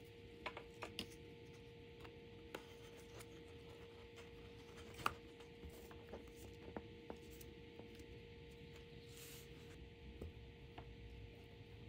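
Quiet handling noise: scattered small clicks and taps of gloved hands working balsa and spruce wing parts and setting a block weight against the leading edge, the sharpest tap about five seconds in, over a steady faint hum.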